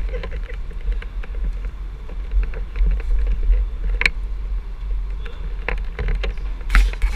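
Handling noise on a small action camera being moved about: a steady low rumble with scattered knocks and clicks, the sharpest about four seconds in and twice near the end.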